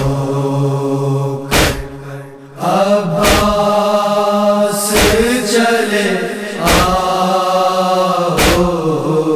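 Noha lament chanting: voices hold long, drawn-out notes between lines, over heavy unison matam strikes (palms beaten on chests) that land about every 1.7 seconds, five times.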